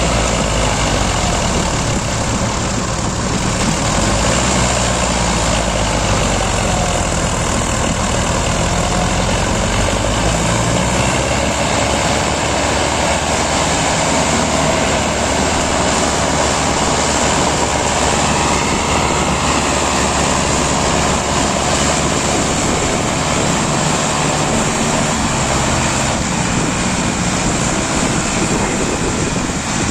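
Diesel tractor engines and a backhoe loader's engine running hard under heavy load, straining together to pull a fully loaded trolley free of soft mud. Loud and steady throughout.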